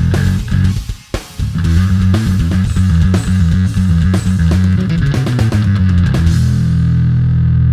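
Electric bass played through a Darkglass Microtubes 900 V2 bass amp head, a riff of low notes over a drum kit. There is a brief break about a second in, and the riff ends on a long held note near the end.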